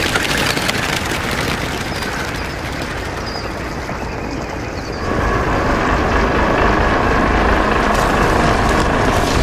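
Steady low rumble of a large vehicle approaching, growing louder about five seconds in.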